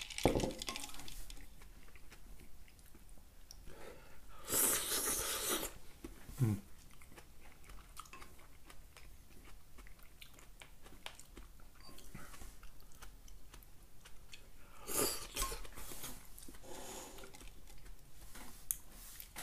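A person eating noodles in broth with chopsticks: quiet chewing, with loud noisy slurps about four and a half seconds and again about fifteen seconds in, and a short low grunt just after the first slurp.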